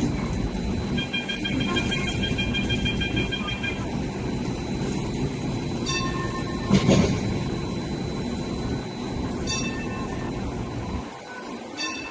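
Hong Kong Light Rail Phase 1 car at a platform: a pulsing door-closing warning beep sounds for about three seconds, the doors shut, and the car pulls away over a steady low rumble, with a loud thump about seven seconds in and a few sharp clicks.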